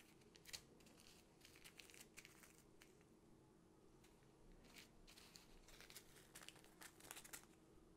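Faint crinkling of small plastic zip-lock bags of diamond painting drills being handled, in short scattered bursts over a faint, steady low hum.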